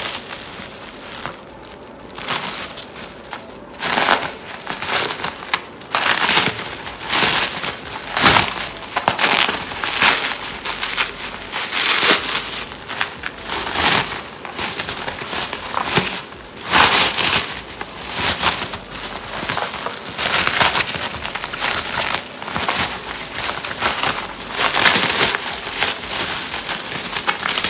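Clear plastic stretch wrap being pulled and peeled off a bubble-wrapped package by hand, layer after layer, crinkling and crackling in irregular bursts.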